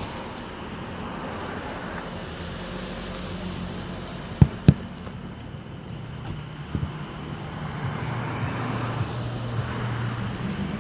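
Steady hum of cars and road traffic, with engine-like droning that grows a little louder later on. Two sharp bangs in quick succession stand out a little before the middle.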